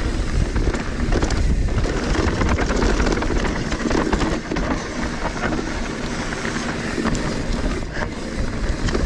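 Trek Slash 8 full-suspension mountain bike descending fast on a dirt trail: tyres rumbling over the ground and the bike rattling and clicking over bumps, with wind rushing over the microphone.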